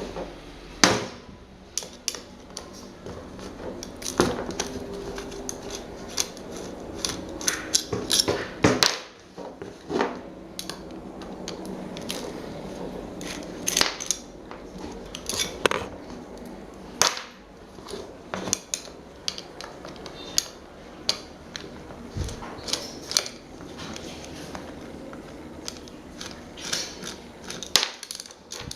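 Irregular clinks, taps and knocks of metal parts being handled and worked on during an old electric fan's restoration, over a steady background noise.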